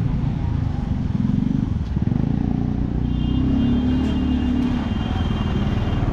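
Motor vehicle engine running close by, its pitch rising briefly twice.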